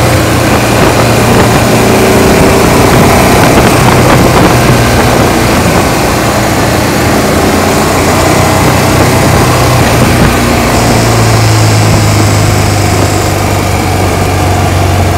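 Sidecar motorcycle's engine running steadily under way, with heavy wind noise on the microphone. About eleven seconds in, the engine note drops to a lower pitch.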